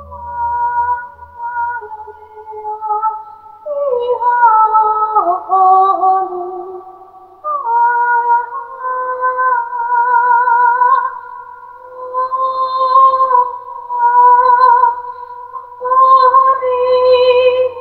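A woman's voice singing wordless, high held notes with a wavering vibrato, in phrases broken by short pauses for breath: vocal toning for sound healing.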